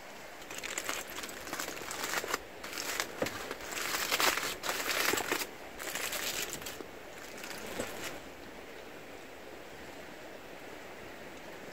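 Aluminium foil crinkling and rustling as a foil parcel is opened and handled, in a string of rustles over several seconds, loudest about halfway through. It dies down after about eight seconds.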